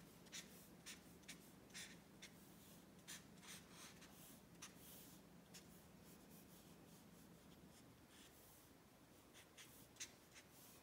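Faint scratchy strokes of a marker on paper as short dashes are dabbed onto a drawing, about two a second for the first five seconds, then sparser.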